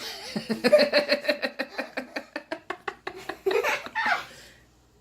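A person laughing hard in rapid, even pulses for about three seconds, ending in a short drawn-out vocal sound.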